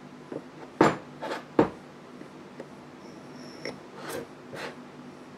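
A steel block and digital calipers handled on a countertop: three sharp knocks about a second in as the block is set down and turned, then fainter taps and short scrapes.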